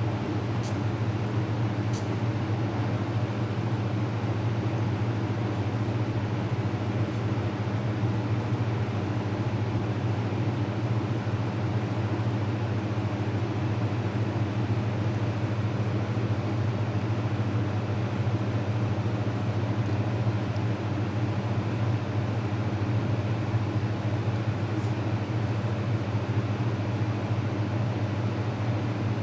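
Fiber laser welding machine humming steadily with a low, even drone, with two faint clicks about a second and two seconds in.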